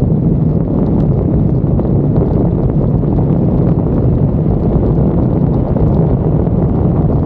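Wind rushing over the microphone of a moving motorcycle, a steady low rumble with the engine's even drone underneath.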